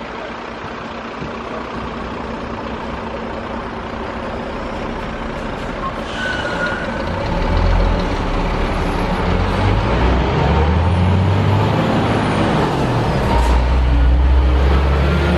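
Heavy diesel engine of a Scania G440 fire tanker growing louder as the truck approaches and passes close by. Its deep drone changes pitch in steps and is loudest near the end, over a steady haze of road noise.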